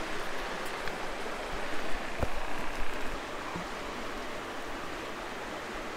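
Steady rush of flowing water, with a faint single click about two seconds in.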